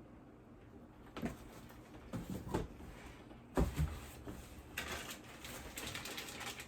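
Items and packaging being handled: a few knocks and clunks, the loudest about three and a half seconds in, then rustling of packaging near the end.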